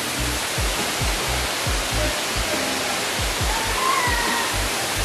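Waterfall rushing in a steady, even roar, under background music with a deep, regular pulsing beat.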